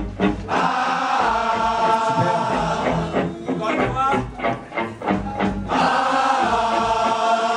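Live rock band playing through a venue PA: electric guitar and bass guitar over drums, with a vocal line of long held notes.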